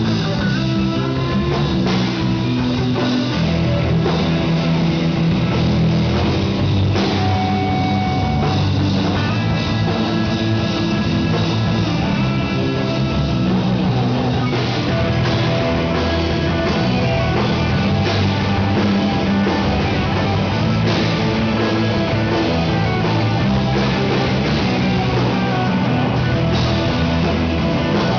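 Rock band playing live, with guitars and drum kit, the sound getting fuller and brighter about halfway through.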